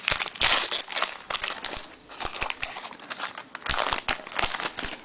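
Irregular crinkling and rustling of trading cards and their pack wrapper being handled, with short scrapes and clicks.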